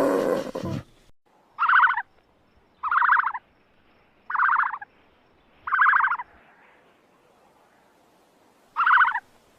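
An animal call of about half a second, with a rapid pulsing, repeated five times at uneven gaps, after a louder pitched sound cuts off within the first second.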